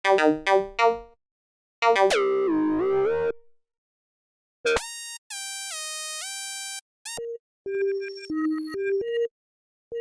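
Reason Subtractor software synthesizer patches being auditioned one after another: a few short plucked notes, then a chord whose pitch bends down, then a bright stepping sequence of bell-like tones, and a string of short bleeping notes near the end, with silent gaps between the patches.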